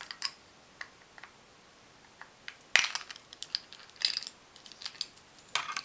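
Sharp clicks and snaps of hard plastic as a nail nipper pries at a MAC eyeshadow compact to pop the pan out, the loudest snap about three seconds in and a few more clusters of clicks after it.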